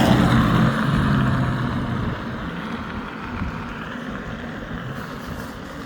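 Rolling and wind noise of an Inmotion V12 electric unicycle being ridden. It is loudest at the start and eases off after about two seconds into a steadier run.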